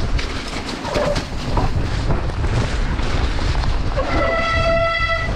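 Mountain bike ridden fast down a wet dirt trail, with wind buffeting the microphone and the tyres and frame rattling over the ground. About four seconds in, a loud, steady, high squeal sets in, typical of wet disc brakes being applied.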